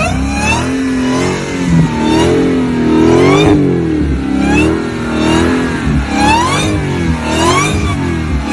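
Dodge Challenger SRT Hellcat Super Stock's supercharged 6.2-litre Hemi V8 being revved over and over, its pitch rising and falling with each blip, with a high whine climbing along with every rev.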